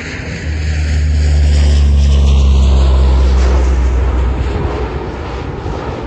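A Convair 580 air tanker's two Allison turboprop engines on a low pass: a deep, steady propeller drone that swells to its loudest two or three seconds in, then fades as the aircraft goes by.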